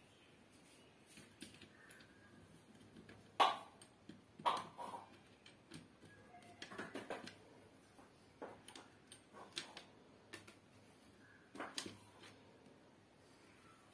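Faint, scattered clicks and taps of a screwdriver and small metal parts being worked on the terminal screws and wiring inside a plastic extension box. The two loudest knocks come about three and a half and four and a half seconds in.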